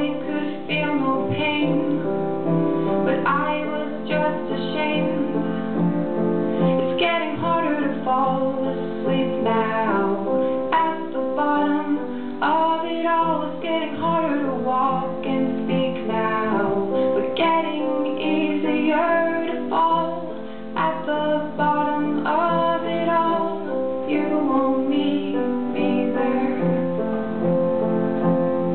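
A woman singing with piano accompaniment.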